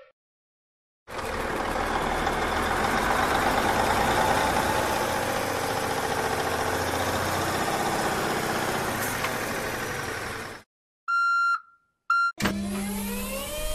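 Cartoon sound effect of a heavy truck engine running, starting about a second in and stopping about ten seconds in. Then come two electronic beeps, the second shorter. Near the end a motor whine rises steadily in pitch as the crane's boom lifts.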